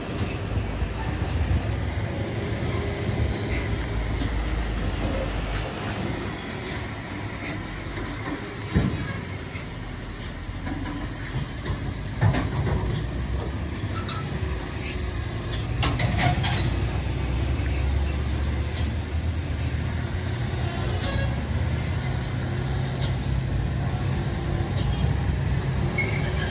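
Heavy diesel truck engines running in passing road traffic, a deep drone that grows louder about two-thirds of the way through, with a couple of sharp knocks along the way.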